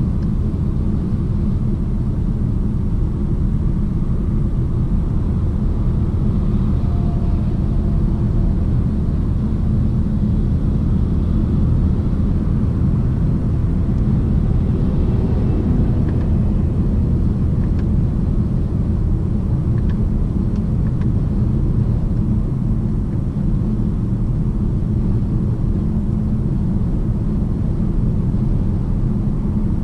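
Steady low rumble inside the cabin of a BMW 750d xDrive cruising at motorway speed: road, tyre and engine noise with no change in pace.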